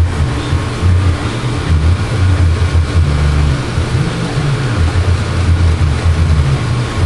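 Aquarium aeration: a loud steady low hum with a hiss of bubbling air over it.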